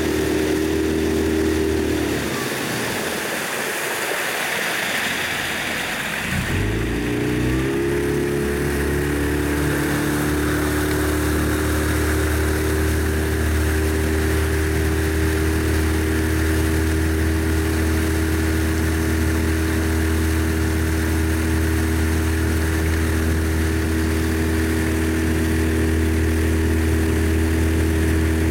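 Motorboat engine running steadily at cruising speed. About two seconds in its note drops away under a hiss for a few seconds, then comes back with a short rise in pitch and runs on evenly.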